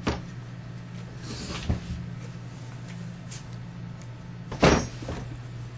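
Knocks and bumps of a GE 3/4 hp electric motor being handled and set down on a wooden workbench: a knock at the start, a lighter one about a second and a half in, and the loudest thud about four and a half seconds in, over a steady low hum.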